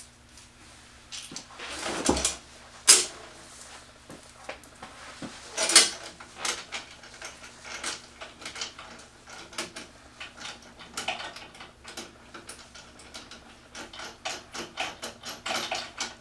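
Metal clicks, knocks and rattles from a drill press table's fence and stop block being handled and adjusted. Sharp knocks about three and six seconds in are the loudest, and a run of quick small clicks comes near the end.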